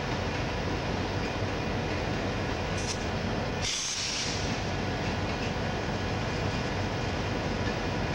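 CSX freight cars rolling past on the rails, a steady rumble of wheels on track, with a short high-pitched hiss about halfway through.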